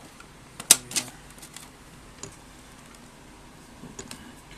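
A few sharp clicks and knocks from handling things at a desk, the two loudest about a second in, then a few lighter ticks.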